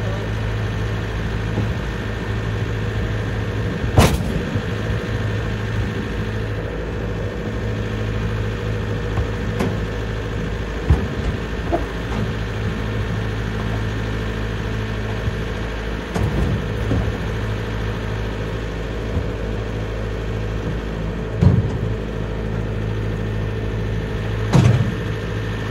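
Diesel tractor engine idling steadily. Three sharp wooden knocks, the loudest about four seconds in and two near the end, come from heavy oak rounds being hooked and shifted on a trailer deck.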